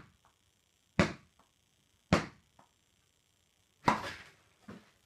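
A series of sharp knocks, about one a second with a longer gap before the last. Each dies away quickly and is followed by a faint tap.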